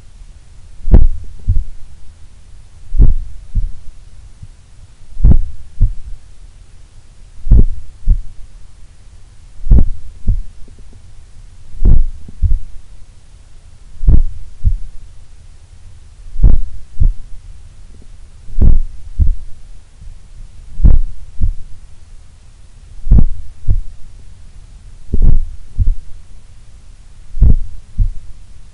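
A human heart heard through a stethoscope chest piece pressed on the chest: slow, even lub-dub beats, each a strong thump followed by a softer one, about one beat every two seconds. A very slow resting heart rate, typical of an athlete's heart.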